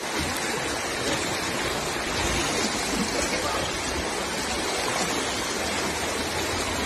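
Muddy floodwater rushing down a street, a steady, unbroken rush of water.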